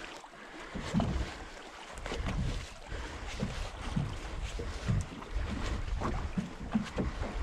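Wind buffeting the microphone over water slapping and lapping against the hull of a small fishing boat at sea, with a few soft knocks.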